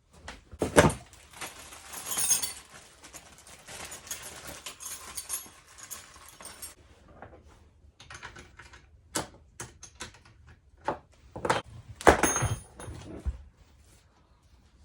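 Hands handling electric-bike parts and packaging during assembly: rustling and scraping with several sharp metallic knocks and clanks, the loudest about a second in and near twelve seconds.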